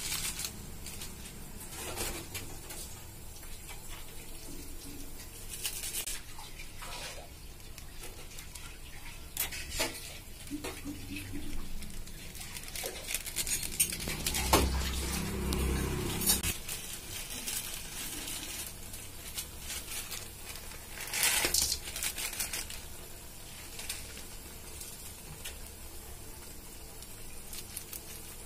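Masala broth simmering in a kadai, with scattered clinks, knocks and soft splashes as dry Maggi noodle cakes are dropped into it.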